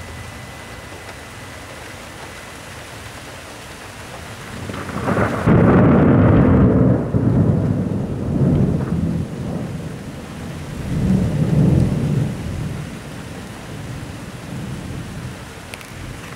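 Rolling thunder over steady rain: a low rumble builds about four seconds in, is loudest over the next two seconds, then rolls on in two more swells before dying away.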